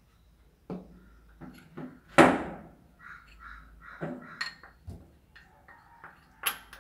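A metal spoon scraping and tapping flour out of a small glass bowl onto a ceramic plate: scattered clinks and knocks, the loudest about two seconds in, some with a brief high ring.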